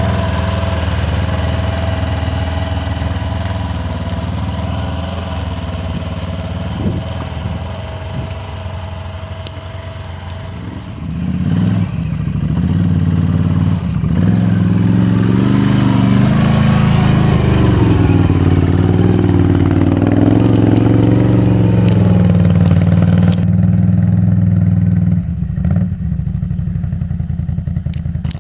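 ATV engine pulling at low speed on rough trail, its pitch rising and falling with the throttle. About twelve seconds in it gets louder and works harder, wavering up and down.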